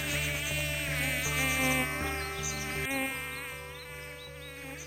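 Bees buzzing, a wavering hum that fades down near the end.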